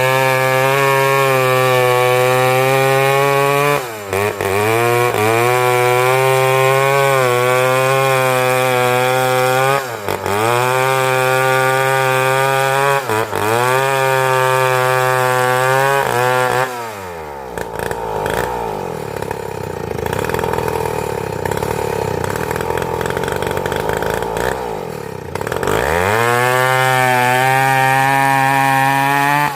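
Two-stroke chainsaw running at high revs while cutting wood. Its pitch dips briefly three times, drops to a rough idle just past halfway, then rises back to high revs near the end.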